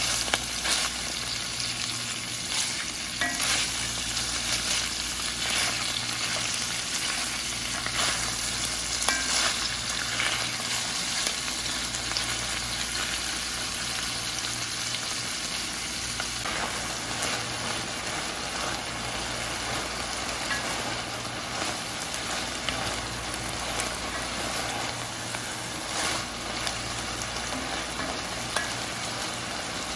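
Sliced onions sizzling steadily in hot oil in a pot, stirred with a wooden spoon that scrapes and knocks against the pot now and then.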